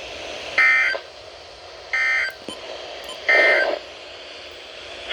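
Emergency Alert System end-of-message data bursts: three short bursts of two-tone digital data (the SAME "NNNN" end-of-message code), each about half a second long and spaced a little over a second apart, over a steady hiss. They signal that the alert message has ended.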